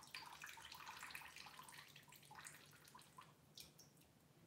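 Faint water dripping and trickling in small ticks that thin out toward the end, over a faint steady low hum.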